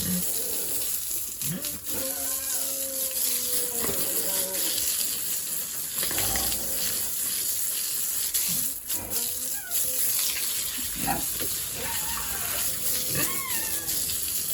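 Water running and splashing steadily, as when a pig pen is washed down, with pigs' short squeals and grunts breaking in now and then.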